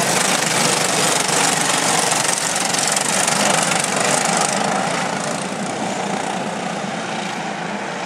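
Engines of a pack of racing karts running together on the circuit, a dense, steady engine noise that slowly fades over the second half as the karts move away.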